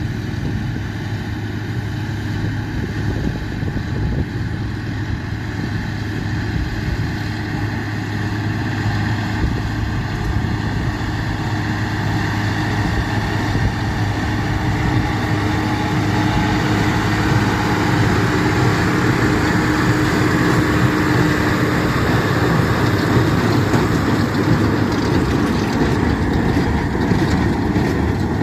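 Massey Ferguson 6475 tractor's diesel engine running steadily, gradually getting louder.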